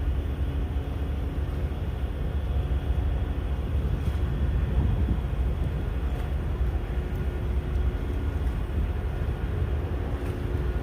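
Ise Bay Ferry car ferry's engines running as it berths, a steady low rumble with faint humming tones over it.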